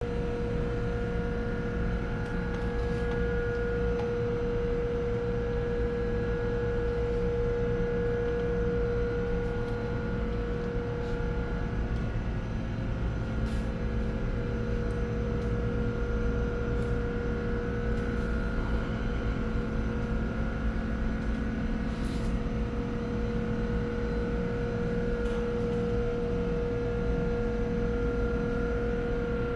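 Refrigeration plant machinery running steadily: a continuous mechanical drone with a strong, even hum and a low rumble, with a few faint clicks over it.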